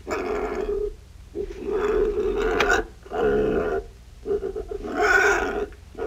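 Domestic pig grunting in four rough bursts, each up to about a second and a half long, with short pauses between.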